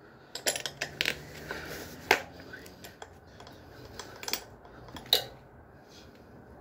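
Scattered sharp clicks and light metallic knocks as a bicycle tire is worked off its rim by hand, with a small metal tool tapping the rim and spokes. The loudest click comes about two seconds in, another about five seconds in.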